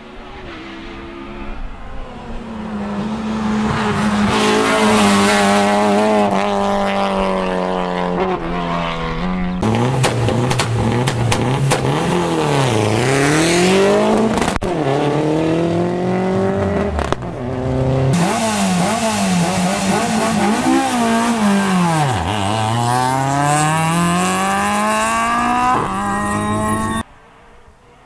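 Rally car engines at full throttle as several cars pass one after another on a closed stage. The pitch climbs through the gears, dips sharply and rebounds as the cars brake and downshift, then rises again as they accelerate away. The sound cuts abruptly from one car to the next about every nine seconds and drops away near the end.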